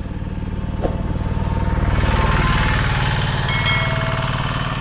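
Motorcycle engine running at a steady low beat while riding, getting louder about two seconds in.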